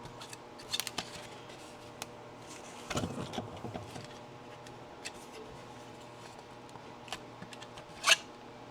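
Scattered small clicks and crackles of 3D-printed plastic tree supports being picked and pried off a printed part by hand. One sharp snap near the end is a support breaking away.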